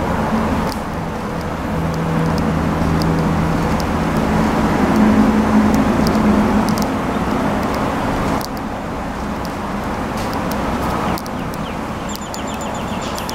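Steady ambient rumble with a low hum, stepping down in level twice, and a quick run of high chirps near the end.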